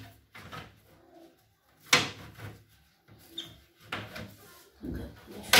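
Oven door's glass pane knocking and clattering against the metal door frame as it is handled and set into place: several sharp knocks about a second apart, the loudest near the end.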